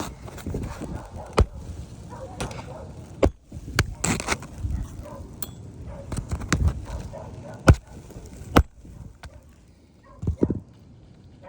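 Irregular sharp knocks and taps, about nine spread over the stretch, from hands-on work on an asphalt shingle roof.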